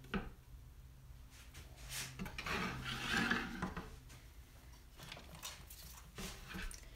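Small hard objects handled on a wooden work surface: a sharp knock, a second or two of scraping and rubbing, then a few light clicks.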